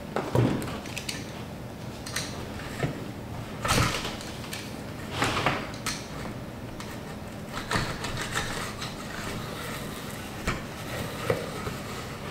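Spline roller pressing the spline and pet-resistant screen into the groove of a screen door frame: irregular rolling and scraping strokes with occasional sharp clicks and knocks.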